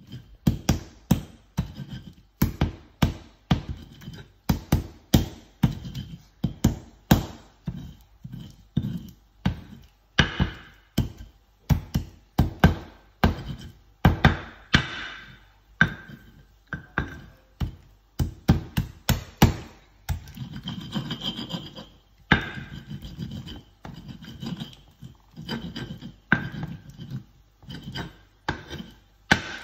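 Stone pestle knocking and grinding in a stone mortar, about two strikes a second, with a stretch of rubbing and scraping around two-thirds of the way through before the knocking resumes.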